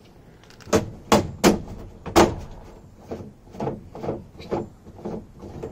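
Thule Motion XT roof box mounting clamp being fitted and tightened onto the roof bar: four loud, sharp clicks and knocks in the first couple of seconds, then a run of softer clicks about two a second.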